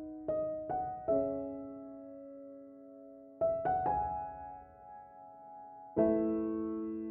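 Slow, gentle solo piano music: a few soft notes struck in small groups, each left to ring and fade, with a sustained chord struck about six seconds in.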